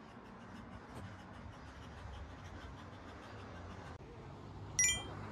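Quiet street ambience with a low, steady traffic hum, then, near the end, a brief high-pitched ring that is the loudest sound.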